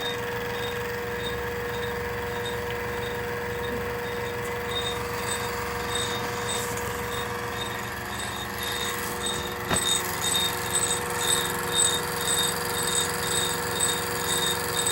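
LMS 3900 HiTorque mini mill running at about 1300 RPM with the power feed driving the table, its end mill taking a light cut along the edge of an acrylic piece: a steady motor hum with faint regular ticking. About ten seconds in there is a sharp click, and the cutting turns louder and uneven.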